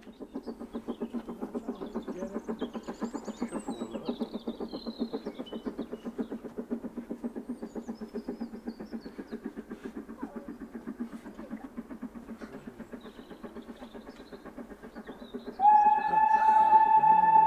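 Steam exhaust beats of BR Standard Class 9F 92214 working along the line, a rapid steady chuffing of about six beats a second. About 15 seconds in, the locomotive's steam whistle sounds loudly and is held, with birdsong faintly above.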